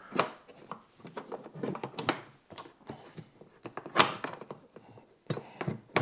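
Handling noise from a hard plastic heater case being shifted and turned on a tabletop: scattered knocks and scrapes, with a sharper thunk about four seconds in and a few more knocks near the end.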